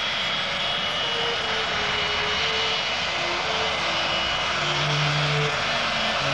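Boeing 727's three Pratt & Whitney JT8D jet engines running at taxi power: a steady, even jet rush with a thin high whine over it.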